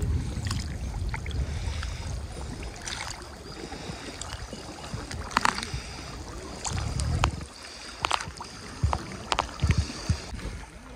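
Water sloshing and splashing as people wade waist-deep through shallow, muddy backwater, stirring it up to drive fish toward a net. Scattered sharp splashes sit over the wash, with low rumbling surges of water near the start and again about seven seconds in.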